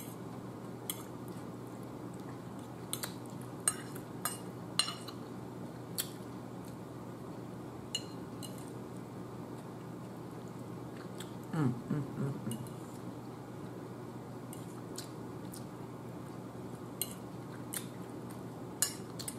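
Metal fork clinking and tapping against a plate, with about a dozen short, sharp clinks spread unevenly. A brief low hum from the eater comes about twelve seconds in.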